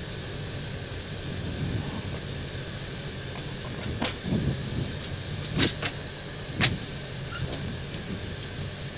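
Steady cockpit rumble of an Airbus A321neo rolling out and slowing after landing. A few sharp clicks come between about four and seven seconds in as the pilots flip switches on the overhead panel.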